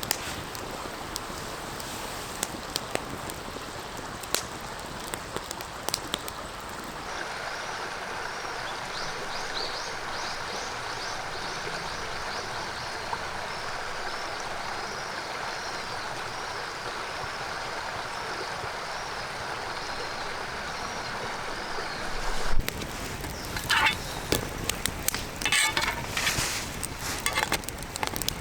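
Steady rushing of a small creek, with scattered sharp clicks in the first few seconds and louder irregular clatter and crackles in the last six seconds.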